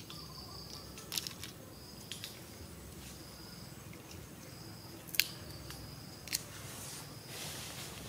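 Insects chirping in short, high, repeated notes about once a second, with a few sharp clicks; the loudest click comes about five seconds in.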